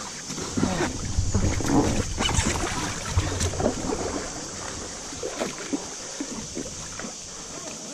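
Inflatable raft on a river: water rushing and splashing around the boat, with scattered short splashes and knocks.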